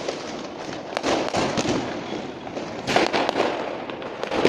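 Many firecrackers and aerial fireworks going off in the distance: an irregular run of bangs over a continuous crackle, with louder bangs about a second in and at about three seconds.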